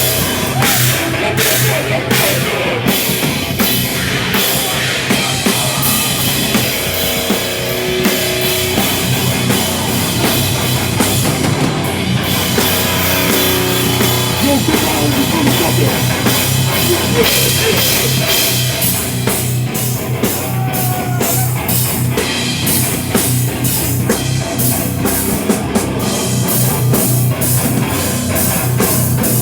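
A rock band playing live and loud, drum kit with steady cymbal hits under guitars, without a break.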